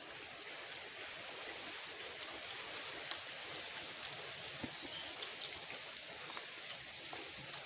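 Steady rushing hiss of running water, with scattered light clicks and smacks from people eating with their hands.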